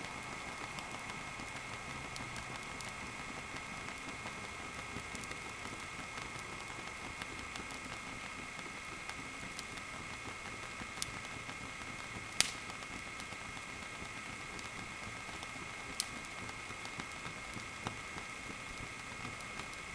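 Wood fire burning in a fireplace: a steady hiss broken by a few sharp crackles of the burning wood, the loudest about twelve seconds in.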